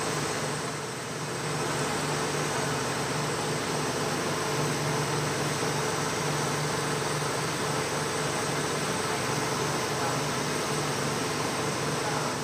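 Metal lathe running steadily, its motor and gearbox humming while a forklift clutch hub is turned down to a smaller outside diameter in the chuck. The level dips briefly about a second in.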